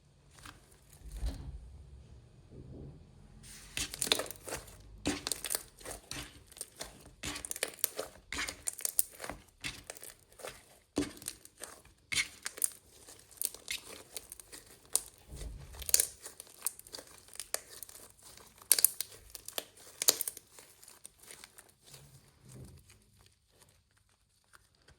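Clear slime being handled: a dense run of sticky clicks and crackles from about three seconds in until near the end, with a couple of soft low thuds.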